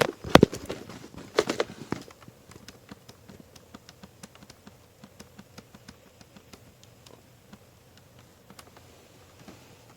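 Several sharp knocks and plastic clatter as small items are handled around the mini fridge, loudest in the first two seconds, then a long run of faint light ticks.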